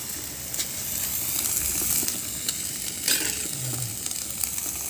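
Sardines and egg sizzling in oil in an electric cooking pot as the liquid cooks off, a steady hiss broken by a few sharp pops.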